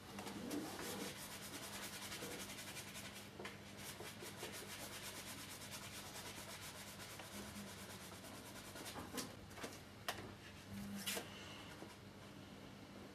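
Oil-painting brush scrubbing rapidly back and forth on stretched canvas, a dry rubbing scratch, working in painting medium alone to soften an edge. It eases off after about nine seconds, and a few sharp knocks follow near the end.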